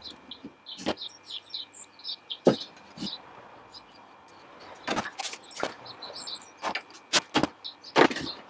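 Pine boards being handled and set against each other on a wooden workbench: a series of irregular sharp knocks and clacks, coming more often in the second half, with faint high chirps between them.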